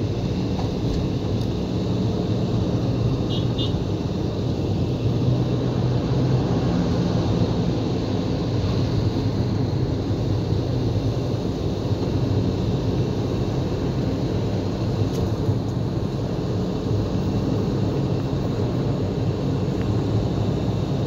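Steady road and engine noise of a car driving slowly, heard from inside the cabin: an even low rumble with no clear changes.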